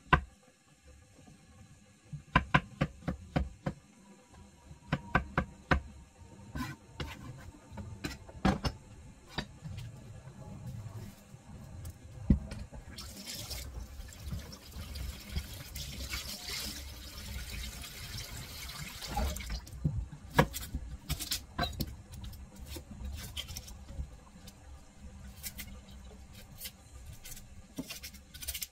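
Kitchen knife chopping mushrooms on a wooden cutting board: runs of sharp knocks. About halfway through, the kitchen tap runs into a stainless steel sink for several seconds, then scattered knife knocks and taps follow.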